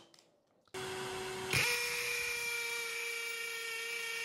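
Flex FX1271T 24V brushless hammer drill boring into a concrete block with a masonry bit. After a brief near-silence a steady hum starts under a second in, then the sound jumps louder and higher about a second and a half in and holds a steady pitch as the bit cuts.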